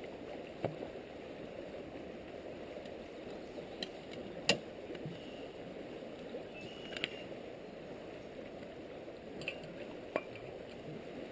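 Steady rush of flowing river water, with several short, sharp clinks of a camp cookset being handled. The loudest clink comes about four and a half seconds in.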